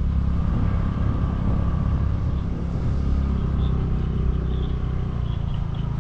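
Motorcycle engine running steadily while riding, a continuous low drone.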